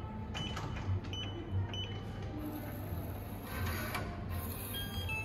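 ASSA ABLOY electronic keypad door lock beeping as a code is entered: three short high beeps, one per key press, about two-thirds of a second apart. Near the end the lock gives a falling chime of three tones.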